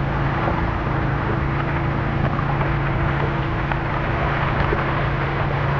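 Trout-stocking truck running steadily, a constant low hum over an even wash of noise.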